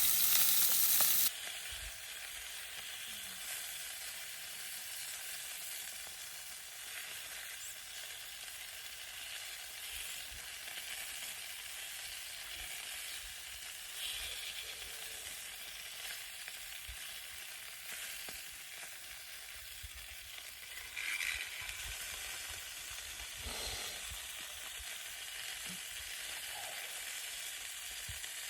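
Sausages frying in a camp frying pan: a steady sizzle with small crackles and pops. It is louder for the first second or so, then settles to an even hiss.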